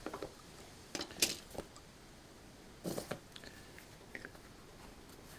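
Light metallic clicks and clinks of tools and parts being handled while something is fitted onto the quad bike's front hub: a few sharp taps spread out, the loudest near the start and in the middle.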